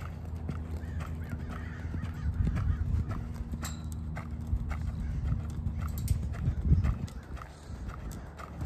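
A horse loping around a sand arena: a steady run of hoofbeats in the sandy footing, loudest about two-thirds of the way through.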